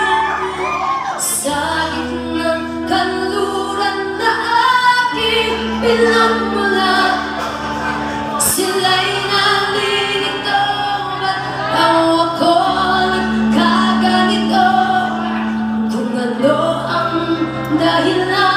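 Live pop-rock band through a PA: female lead vocals over electric guitar, bass guitar and keyboard, the bass holding long notes that change every couple of seconds. Two cymbal-like crashes land about a second in and about halfway through.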